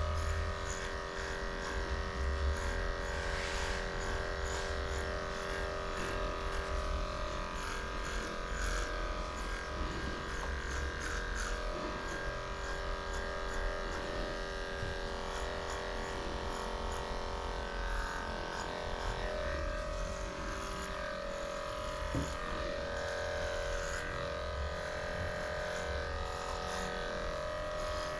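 Electric dog grooming clippers running steadily as they shave through a matted coat.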